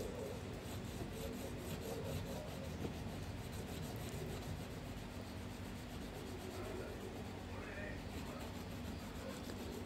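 Marker pen tip rubbing along the edges of a die-cut paper window: faint, continuous scratchy rubbing.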